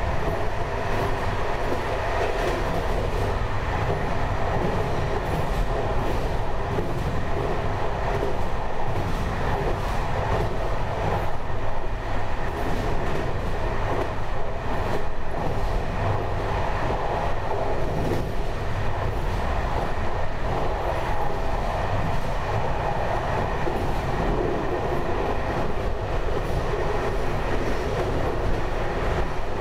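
Train running steadily along the track, heard from inside: a continuous rumble of wheels on rail.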